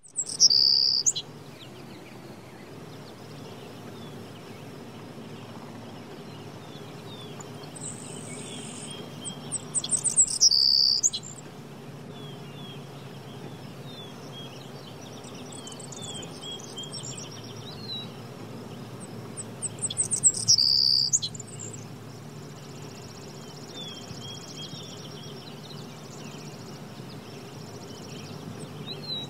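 Outdoor birdsong ambience: several small birds chirping and twittering on and off, with a loud close burst of calls three times, about ten seconds apart, over a steady low background rumble.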